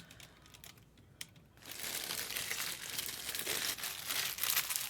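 Plastic or foil trading-card pack wrappers crinkling as they are handled. A few faint clicks come first, then dense crinkling starts about a second and a half in and carries on.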